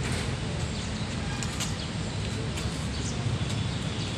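Steady low rumble of a boom truck's engine running while its crane holds a load, with faint bird chirps above it.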